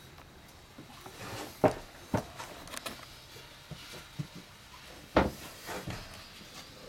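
A few scattered knocks and thumps over a quiet background, the loudest about five seconds in.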